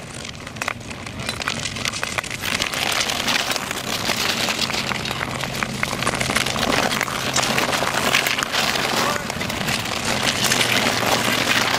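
Marathon speed skates' blades scraping and rasping over poor natural lake ice as a group of skaters strokes past, the crackling growing louder as they come near. A steady low hum runs underneath.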